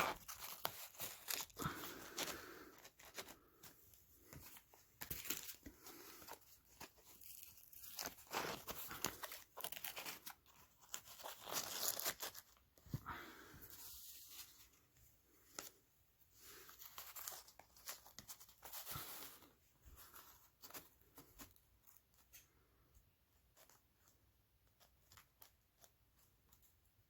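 Carpet being worked by hand: irregular tearing and scraping noises with scattered clicks, which die away in the last few seconds.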